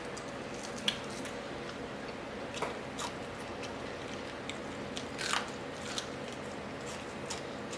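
Crispy fried crappie being pulled apart by hand and bitten into, with a few scattered crunches and crackles; the longest and loudest comes a bit after five seconds.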